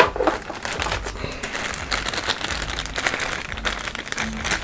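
A sharp click, then continuous crinkling and rustling of plastic heat-shrink tubing and wiring being handled.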